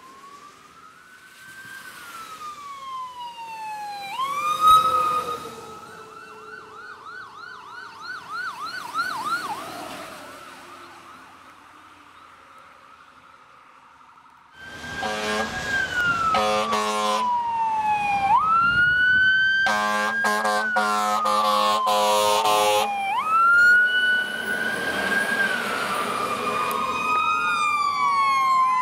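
Fire truck electronic siren wailing up and down, switching to a fast yelp for a few seconds. Then, suddenly louder, another fire truck's siren wails with long air horn blasts over it.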